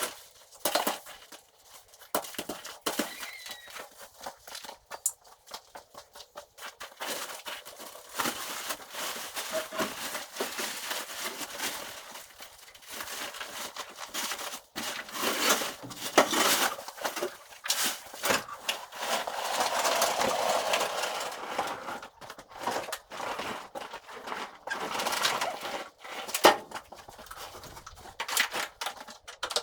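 Irregular knocks, clatter, scraping and rustling of assorted items being picked up, shifted and set down while a shed is cleared out.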